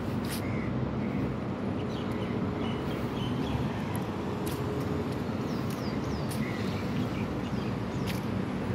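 Steady outdoor street noise, likely distant traffic, with short high bird chirps scattered through it, several in the middle of the stretch.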